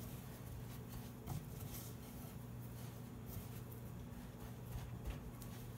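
Faint rustling of breadcrumbs as hands press a chicken cutlet into the crumbs in a stoneware bowl, over a steady low hum.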